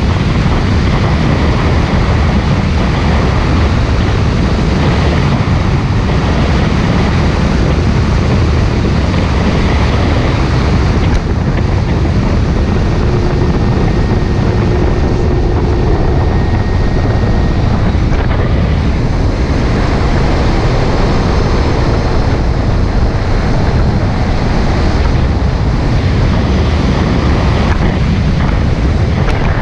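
Heavy wind buffeting on the microphone of a Kawasaki jet ski running at steady speed across open water, with the engine and water rushing underneath.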